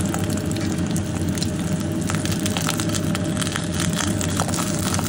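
Egg frying in oil in a cast-iron pan, a steady sizzle of fine, irregular crackles and pops as the white crisps at the edges, over a steady low hum.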